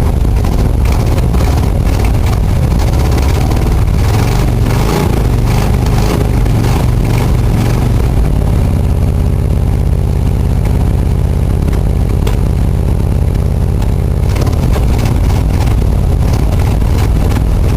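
1969 GMC truck engine running just after a cold start in freezing weather, uneven at first and settling into a steadier idle about eight seconds in.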